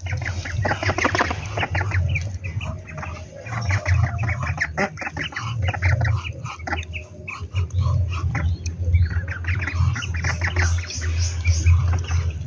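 A flock of domestic ducklings peeping and a white domestic duck calling as they crowd in to be fed, many short calls overlapping in a dense, unbroken chatter, with a low rumble underneath.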